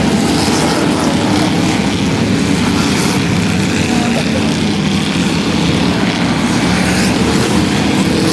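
A pack of Ford Crown Victorias racing together, their V8 engines running hard in one steady, dense din with no single car standing out.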